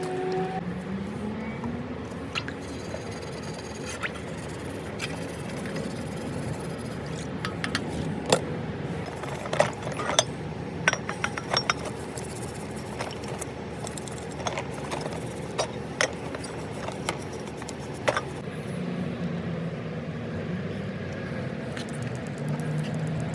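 Small metal parts clinking and tapping against each other, a cluster of sharp clicks in the middle stretch, over a steady background hiss.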